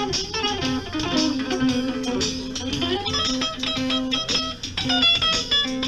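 Electric guitar played live: a fast run of picked single notes over a low note that keeps repeating underneath.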